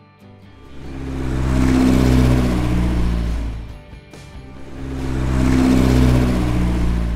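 A vehicle engine droning up and fading away, twice in a row, each swell lasting about three seconds, over faint background music.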